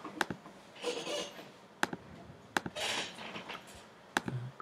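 Sharp, separate computer mouse clicks, about four in a few seconds, with two short hissing rustles between them.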